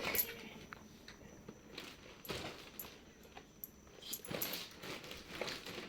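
Quiet room with a few faint rustles and soft knocks, about two seconds in and again near the end.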